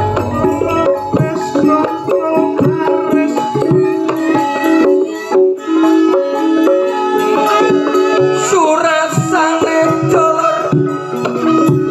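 Javanese gamelan music accompanying a wayang show: held metallophone notes over steady kendang drum strokes. A wavering melody line comes in about eight and a half seconds in.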